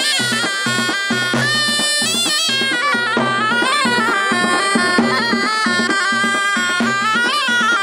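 Several ghaitas (double-reed folk shawms) playing a loud, wavering, ornamented melody together, over a regular beat on a large drum.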